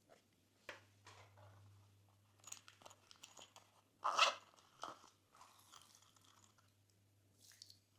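Glossy slime being pressed and mixed by hand, making irregular sticky crackles and clicky pops, the loudest a short burst about four seconds in.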